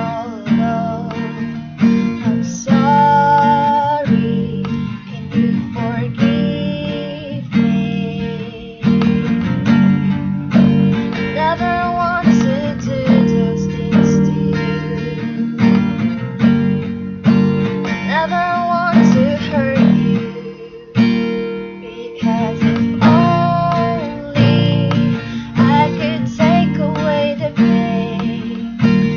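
A woman singing a song to her own strummed ukulele, fitted with a capo. The strumming eases off briefly about two-thirds of the way through.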